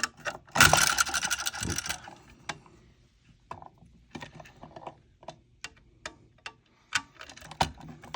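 Screwdriver taking out the old outlet's cover plate and mounting screws: a loud scraping rattle starting about half a second in and lasting over a second, then scattered small clicks and taps of metal and plastic.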